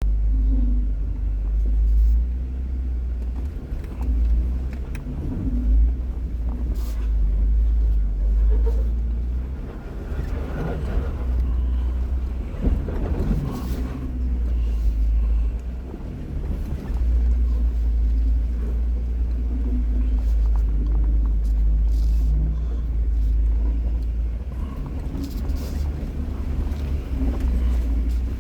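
A motor vehicle running, with a heavy, continuous low rumble.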